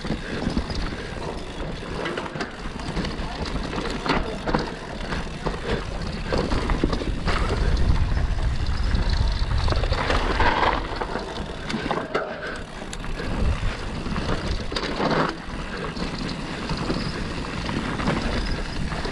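Mountain bike riding down a dirt trail: tyres rolling, with the bike knocking and rattling over bumps, and wind rumbling on the microphone, heaviest about eight to ten seconds in.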